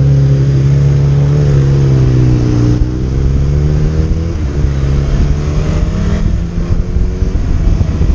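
Motorcycle engine running as the bike pulls away and picks up speed, its pitch sagging and then rising again about three seconds in. Wind rushing over the microphone builds near the end.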